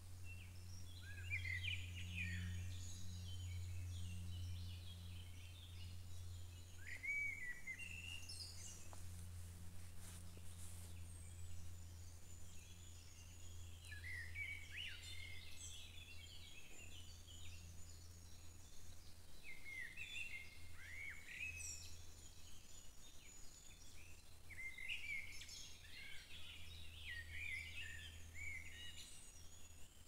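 Songbirds singing in short chirping phrases every few seconds, over a steady low hum.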